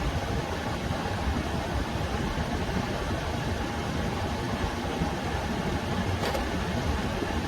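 Whynter ARC-14S dual-hose portable air conditioner running: a steady hum of its compressor and fan. There is one brief click about six seconds in.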